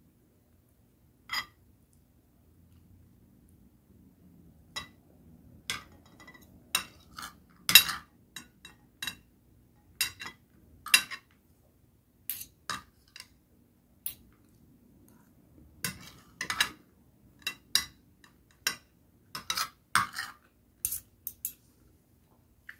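Metal spoon and fork clinking and scraping against a plate during a meal, in irregular sharp taps that start about a second in.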